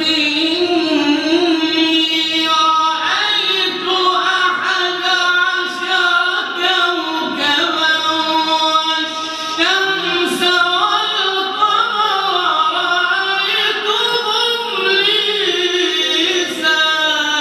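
Melodic Quran recitation (tajweed) of the opening verses of Surat Yusuf: a single voice drawing out long ornamented notes that glide up and down, with short pauses for breath.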